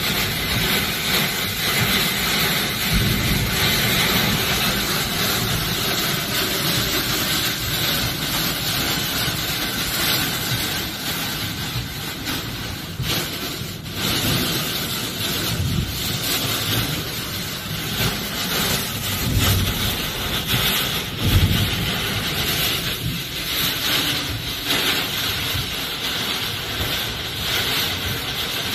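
Heavy rain and strong tornado winds: a dense, steady rush of noise, with gusts buffeting the microphone now and then, the strongest about three quarters of the way through.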